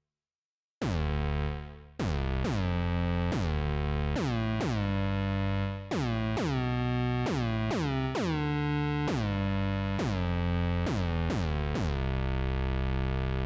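Charlatan software synthesizer playing a bass-heavy patch. After a short silence at the start, it plays a string of sharply attacked notes in an uneven rhythm, each opening with a quick downward sweep and sustaining until the next.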